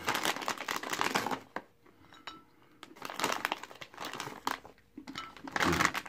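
Plastic snack bag crinkling in three bursts as a hand digs in and pulls out chocolate-covered pretzels, with light knocks as the pretzels are set on a ceramic plate.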